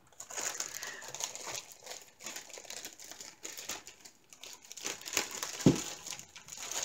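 Clear plastic packaging bag crinkling and rustling as it is handled, with a soft knock a little after halfway through.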